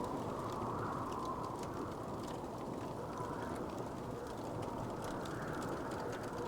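Wood fire burning: a steady low rush of flame with scattered small crackles and pops.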